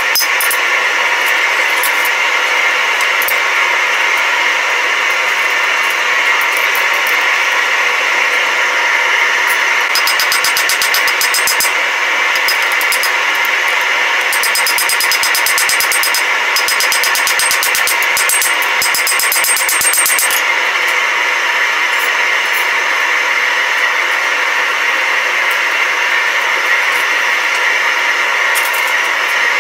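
Hand hammer striking red-hot steel laid over a hardy cutter on an anvil to cut off excess material, in quick runs of blows about ten seconds in and again from about fourteen to twenty seconds in, over a steady loud workshop noise.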